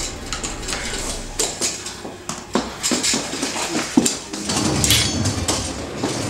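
Irregular metallic clattering and knocks: a metal IV drip stand being dragged and its pole swung and banged about in a scuffle.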